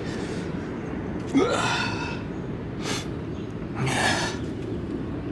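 A man's heavy breaths, two audible exhales a couple of seconds apart, with a short click between them, over a steady low background rumble.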